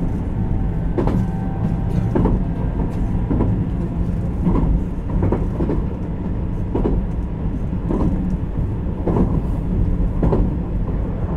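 Running sound of the JR Kyushu 817 series electric train, motor car KuMoHa 817-1009, heard from inside the car while under way. A steady low rumble, with the wheels clacking over rail joints about once a second.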